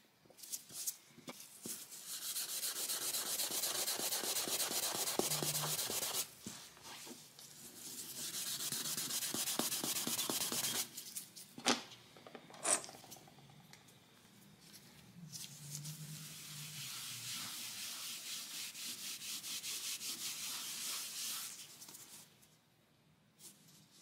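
Brisk hand rubbing over a repaired patch of laminate floor: three long bouts of fast scrubbing strokes, with two sharp clicks in the pause about halfway through.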